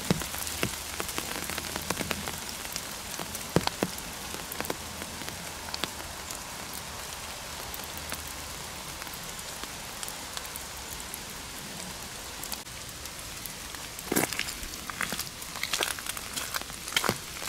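Steady rain falling on the woodland and on an umbrella overhead, with scattered louder drops. From about three-quarters of the way in, footsteps crunch on a gravel path.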